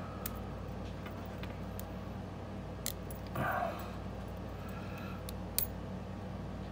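Lock pick and tension wrench working inside a solid brass pin-tumbler padlock: a handful of small, sharp metallic clicks a second or two apart, over a steady low hum. There is a brief muffled sound about three and a half seconds in.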